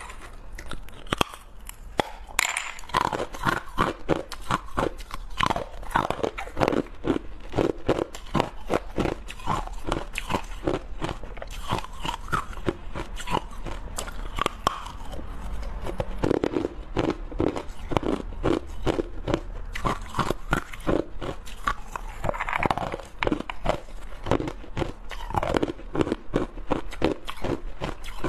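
Discs of purple-dyed ice being bitten and chewed: a rapid, continuous run of sharp crunches and cracks.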